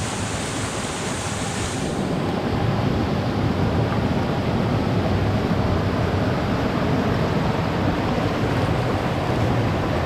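Heavy rain pouring steadily. About two seconds in, the highest hiss drops away and the rain sounds a little louder and fuller.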